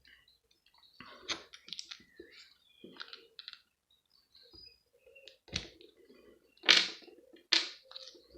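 Small clicks, scrapes and knocks of hand tools and metal pieces being worked out of a plastic plug adaptor, with three sharper clicks in the second half.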